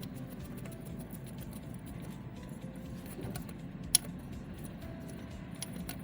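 Small metallic clicks and rattles of hand tools working the oil filter housing bolts, with one sharp metal click about four seconds in.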